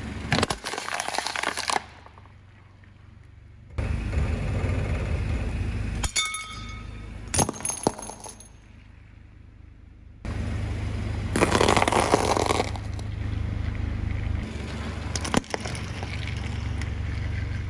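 A car tyre crushing objects in turn, with cracking and crunching. Glass breaks with tinkling, ringing shards about six to eight seconds in. The car's low, steady engine hum runs under much of it.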